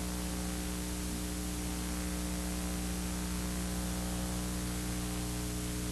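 Steady electrical hum made of several low pitches held together, under an even hiss: the background noise of the recording, with nothing else heard.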